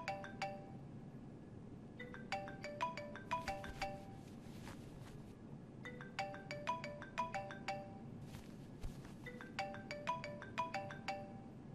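Mobile phone ringtone: a short tune of quick pitched notes, repeated about every three and a half seconds.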